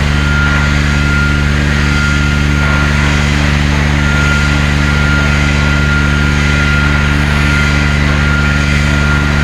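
Welding machine humming steadily and loudly, a deep even drone with a hiss over it.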